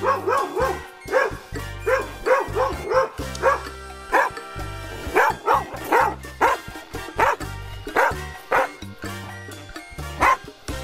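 Dogs barking repeatedly, a quick run of barks at first and then single barks about once a second, over background music.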